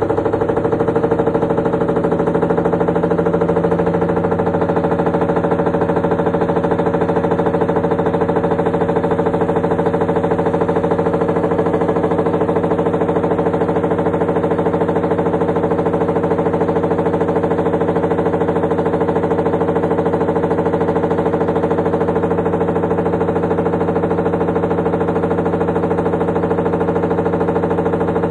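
Samsung Ecobubble 10.2 kg washer-dryer spinning, with a loud, steady, abnormal noise. The service technician put it down to a worn motor, drum and bearing needing replacement.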